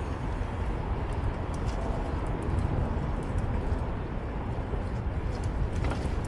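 Wind rushing and buffeting over an action camera's microphone while riding a bicycle through city traffic. It makes a deep, fluctuating rumble with street noise beneath it.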